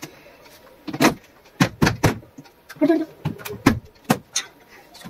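Hard plastic panels and their corner connectors of a modular cube shoe rack clicking and knocking as they are pressed and fitted together: about seven sharp, irregular clicks, most of them between one and four seconds in.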